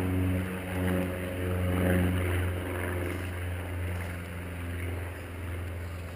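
An engine running with a steady low hum that grows gradually fainter toward the end.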